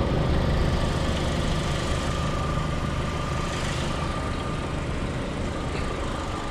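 2020 FAW Besturn X80's 2.0-litre naturally aspirated 16-valve four-cylinder engine idling steadily, heard from beneath the front of the car.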